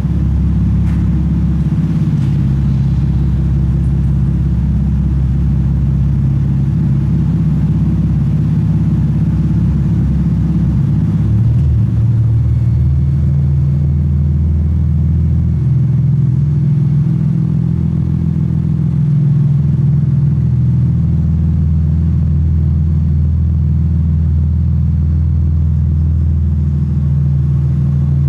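Naturally aspirated MK4 Toyota Supra's 2JZ-GE straight-six idling steadily at the exhaust: an even low drone with no revs.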